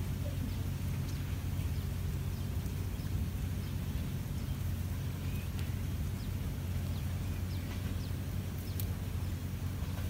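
Steady low mechanical hum, with a few faint, short high bird chirps scattered over it.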